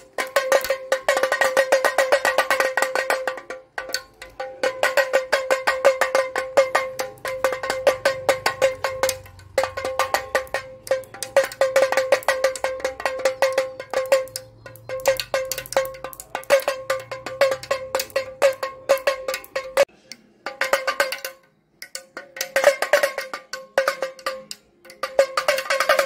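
Toy plastic damru, a two-headed pellet drum, twisted rapidly back and forth so its beads strike the drumheads in fast, rattling runs with a bright ringing pitch. The runs break off in a few short pauses late on, then start again.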